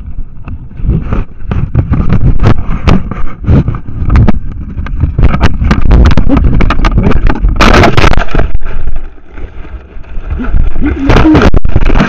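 Loud handling noise on a trail camera's built-in microphone as the camera is pulled down and carried: cloth and hands rubbing against it and many knocks and jolts, with a heavy rumble. It eases briefly a little after the middle.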